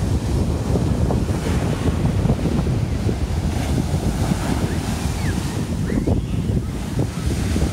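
Atlantic Ocean surf washing onto the beach, with strong wind buffeting the microphone and a constant rumble.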